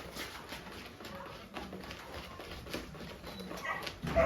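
A pet animal whimpering in short, faint cries, with scattered light clicks and a louder cry at the very end.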